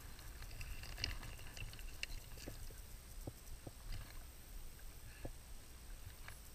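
Irregular light clicks and knocks over a low rumble: handling noise as an angler wading in a creek brings a trout to a landing net.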